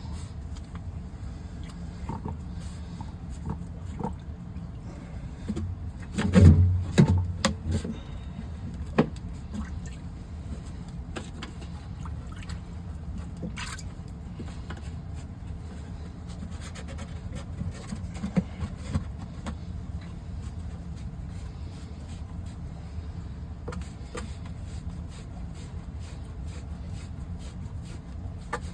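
Knocks and clatter from PVC pipe and fittings being handled while a sump pump's discharge line and check valve are fitted: a loud burst of clunks about six seconds in, a single knock shortly after, and a few lighter taps later, over a steady low background hum.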